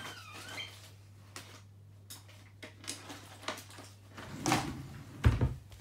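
Scattered knocks and clatters of drawers and cupboards being opened and shut during a search for scissors, with louder knocks and a heavy thump near the end, over a steady low hum.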